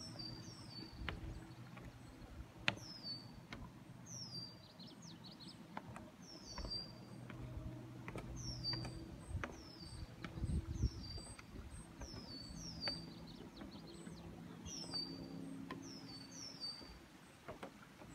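A small songbird repeating a short, high call that slides down in pitch, often given twice in quick succession, about every second. Scattered light knocks sound underneath.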